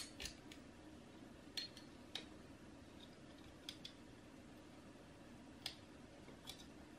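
Faint, scattered small clicks and ticks, about ten at irregular intervals, the loudest at the very start, from a 28-pin EPROM chip being handled and pressed into its socket.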